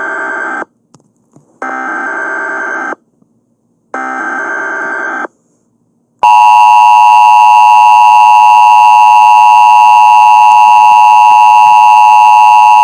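Emergency Alert System header data bursts, a harsh electronic screech heard three times with short gaps, followed about six seconds in by the loud, steady two-tone EAS attention signal that opens a new alert.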